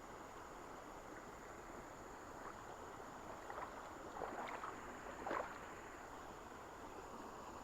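River water running steadily, with a few short splashes and sloshes a little past the middle, the loudest near the end of that run.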